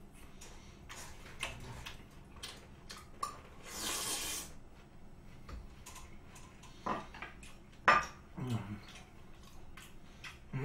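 Chewing of raw beef with soft wet mouth sounds, and chopsticks and a small plate clicking and tapping now and then. A sharp clack near eight seconds in is the loudest sound, and a short breathy hiss comes about four seconds in.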